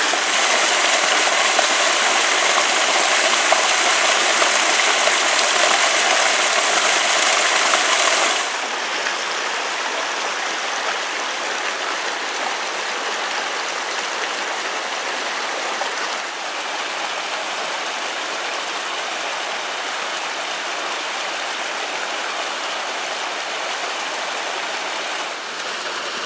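Stream water pouring over a small cascade between boulders, a steady rushing. It drops to a softer level about eight seconds in and then runs on evenly.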